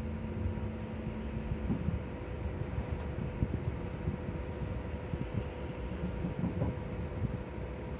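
Electric bus heard from inside the cabin: a steady whine from the electric motor held at one pitch over a low rumble from the bus. A lower hum drops out about two seconds in.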